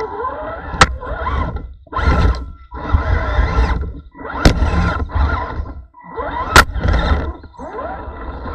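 A scale RC crawler's electric motor and gear drive whining in short bursts with brief pauses as the throttle is worked over rocks. There are three sharp knocks of the truck on stone.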